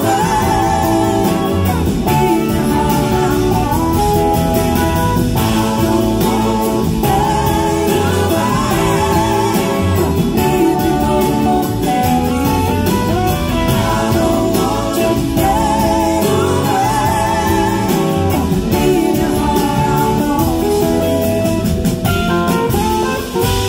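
Live blues-rock band playing: a woman singing lead over electric guitars, bass guitar and drums.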